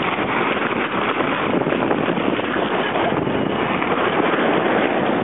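Steady rush of wind over the microphone, mixed with water running along the hull of a sailboat under sail.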